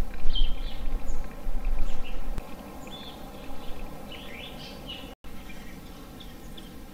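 Small birds chirping, short calls and quick rising notes repeated throughout. A loud low rumble underneath stops about two seconds in, and the sound cuts out for an instant about five seconds in.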